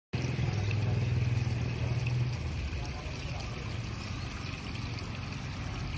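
Low hum of a motor vehicle engine running nearby, strongest for the first two seconds and then easing, over steady outdoor background noise.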